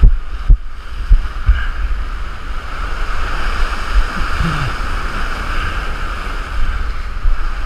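Heavy surf breaking and washing over coastal rocks, a steady rushing wash. Wind buffets the microphone with a few low thumps in the first second and a half.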